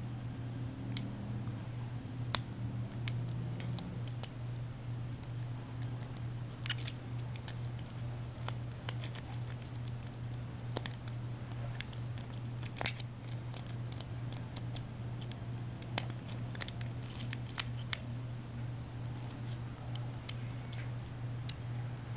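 Lock pick and tension wrench working in the keyway of a five-pin pin-tumbler deadbolt during single-pin picking: scattered small sharp metallic clicks and scrapes, bunching up in places, over a steady low hum.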